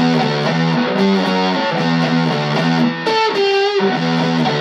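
Ibanez Performer PF-200 electric guitar played through a homemade Russian Big Muff copy fuzz pedal into a small Pignose amp: a metal-style riff of repeated low distorted notes, with a higher note held and bent back and forth about three seconds in. The tone is compressed and typical of fuzz.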